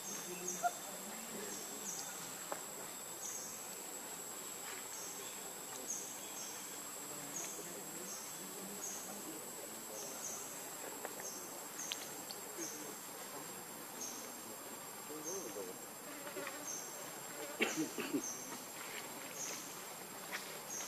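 Insects chirping in the undergrowth: a steady high whine under short, high chirps repeating about one and a half times a second. A few crackles, like rustling in dry leaves, stand out near the end.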